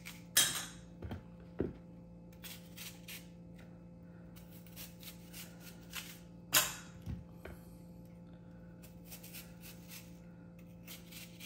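A few sharp knocks and taps of kitchen work as apples are cut and handled, the loudest about half a second in and again past six seconds, with lighter ticks between, over a steady low hum.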